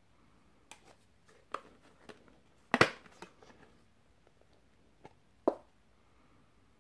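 Clicks and plastic clatter of Blu-ray discs being pressed onto and pried off the hub of a clear plastic multi-disc case, with the loudest snap about three seconds in and another sharp click near the end.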